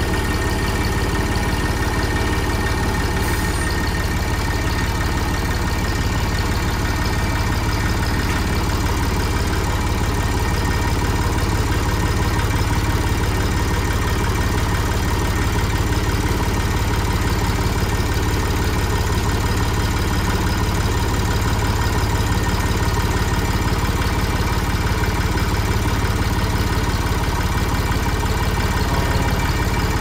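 The engine of an old Massey Ferguson tractor idling steadily, with no change in speed.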